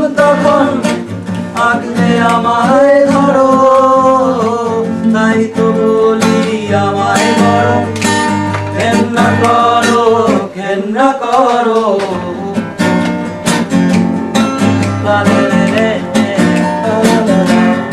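Song with acoustic guitar strumming under a sung melody.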